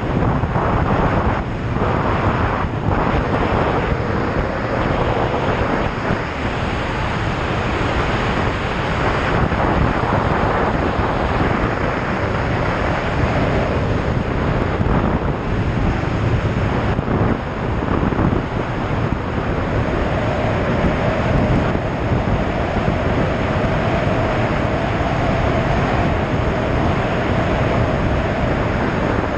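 Wind buffeting the microphone at riding speed on a Triumph Tiger 800 XRx, with the bike's three-cylinder engine running underneath. A steady engine tone comes through more clearly about two-thirds of the way in.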